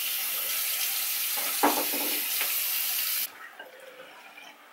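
Water running steadily from a tap into a sink, as a face is rinsed, then shut off suddenly about three seconds in.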